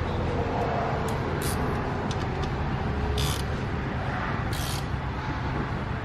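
A steady low machine hum in the background, broken by three short hisses about a second and a half apart.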